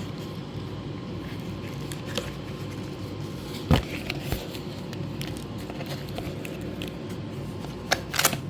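A small product box being pried open and handled: scattered clicks, crackles and scrapes over a steady low hum. The sharpest knock comes about a third of the way in, with two more close together near the end.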